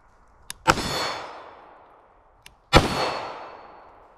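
Two shots from a ported CZ Shadow 2 Compact 9mm pistol, about two seconds apart, each ringing and echoing away over about a second: slow aimed fire for an accuracy group.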